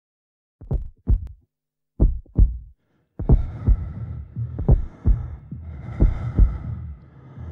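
A slow heartbeat, low double thumps in a lub-dub pattern repeating about every second and a half. About three seconds in, a steady hum and hiss with a thin high tone joins under the beats.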